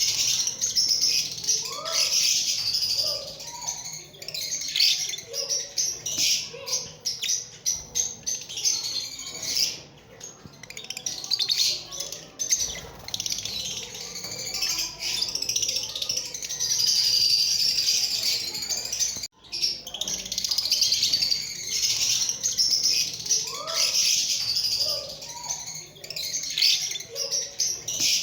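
Lovebirds chirping and chattering nonstop, a dense run of rapid, high-pitched calls, cut by a brief break about nineteen seconds in.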